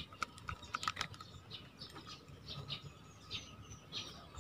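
Small sharp clicks and taps of metal reel parts as a spinning reel is handled and its handle fitted, mostly in the first second, with scattered bird chirps in the background.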